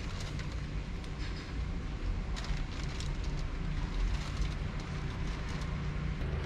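Steady low rumble of city street background, with scattered faint clicks of a cat crunching dry kibble.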